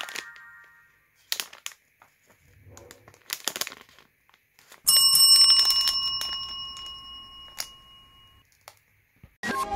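Plastic candy wrapper crinkling briefly a couple of times, then a single bell-like ding about five seconds in that rings on and fades away over about three seconds.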